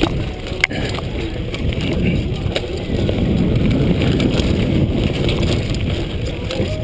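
Mountain bike riding fast down dirt singletrack: tyres rumbling over the trail and the bike rattling over bumps, with wind buffeting the chest-mounted microphone. A sharp click sounds less than a second in.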